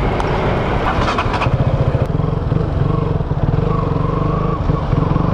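KTM Duke 200's single-cylinder four-stroke engine running under way at fairly steady revs, its note shifting briefly about one and a half seconds in and then holding even.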